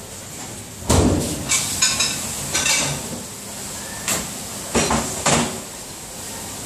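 Metal and crockery clatter at a commercial stainless-steel pass-through dishwasher. A heavy metal bang comes about a second in, then clinking of cups and racks, and a few more sharp knocks near the end.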